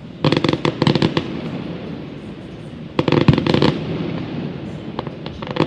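Fireworks crackling in rapid volleys of sharp pops: a cluster about a second long starting just after the beginning, another about three seconds in, and a third starting near the end, with a steady low rumble between them.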